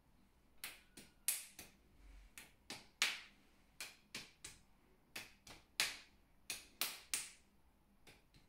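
The blunt end of a bamboo massage stick tapping on a person's clothed body in percussion massage: about sixteen sharp taps, mostly in quick groups of three.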